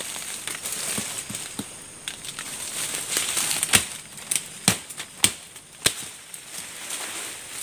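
Dry sticks and brush crackling and snapping as branches are broken off and pulled out of the undergrowth by hand. Several sharp cracks come one after another a little past the middle.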